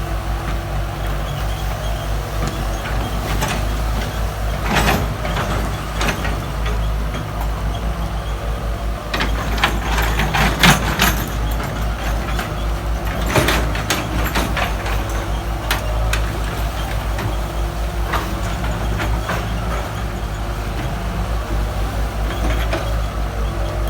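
Diesel engine of a backhoe running steadily, with clusters of clanks and knocks about five seconds in, at ten to eleven seconds, and again at about thirteen and a half seconds.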